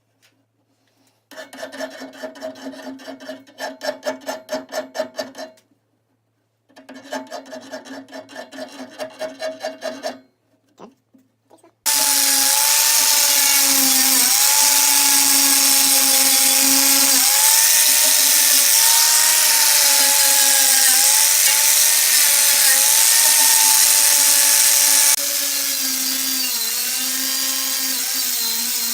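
A hand file worked in quick push strokes on steel stock, about three strokes a second, in two runs of a few seconds each. About twelve seconds in, an electric power tool starts and runs loudly and steadily, its whine wavering in pitch under load, and it gets somewhat quieter near the end.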